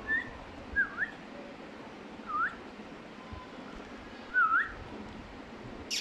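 Four short, clear whistles. A brief rising one at the start is followed by three that each dip and then sweep up in pitch, spaced one to two seconds apart.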